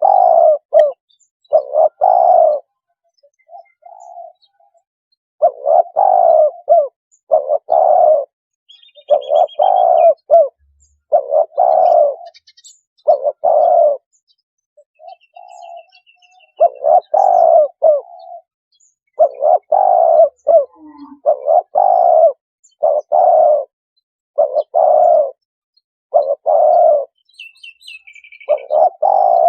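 Spotted dove cooing, played as a lure call to draw spotted doves in: short, low coos repeat about once a second in runs, broken by a couple of longer pauses. Faint high chirps of small birds come through a few times above the coos.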